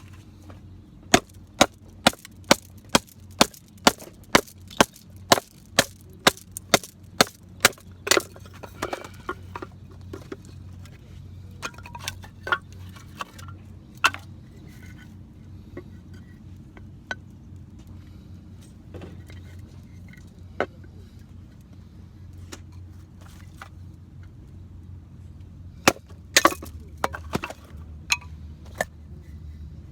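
A wooden baton striking the spine of a Morakniv Garberg knife to split firewood (batoning): a steady run of about fifteen sharp wooden knocks, two a second. Scattered lighter knocks follow, and another short run of hard knocks comes near the end.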